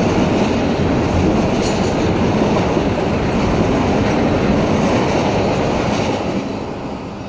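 Freight train of autorack cars rolling past close by: a steady rumble of steel wheels on the rails with faint clicks, fading over the last second or so as the end of the train goes by.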